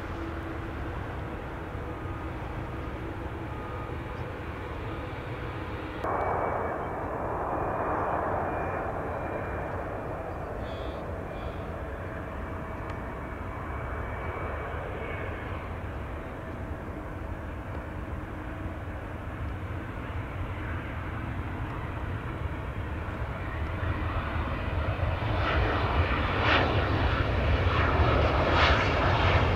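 Jet airliner engine noise: a Boeing 787-9 taxiing for the first few seconds, then, after a cut, a Mitsubishi CRJ-900LR regional jet's two rear-mounted turbofans as it lands and rolls out. The CRJ's engines grow louder over the last few seconds as it rolls past close by.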